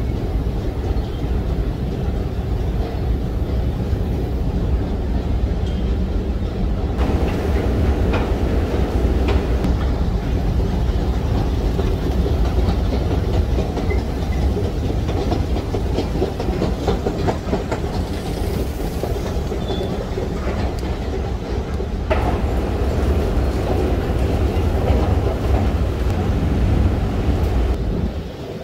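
A long subway-station escalator running: a steady low rumble with a light rattle of clicks from the moving steps, growing harsher from about seven seconds in.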